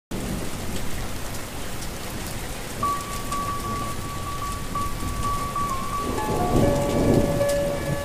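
Steady rain falling, with a low rumble of thunder swelling about six seconds in. Soft music fades in: a single held note from about three seconds in, with more notes joining near the end.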